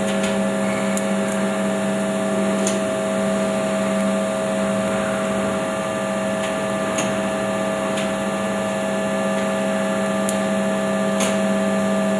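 Extrusion blow molding machine running at a steady hum, its motor and pump holding a few constant low tones, with a few faint clicks scattered through.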